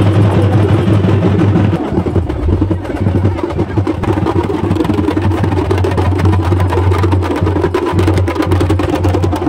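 Fast, dense drumming of Tamil temple-festival music, with a low steady tone underneath that breaks off a few times.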